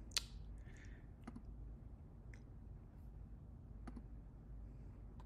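Computer mouse clicks: one sharp click just after the start, then three fainter clicks spread over the next few seconds.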